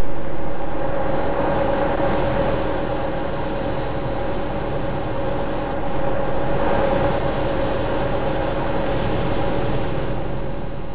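Air conditioner running: a steady fan rush with a steady mechanical hum under it.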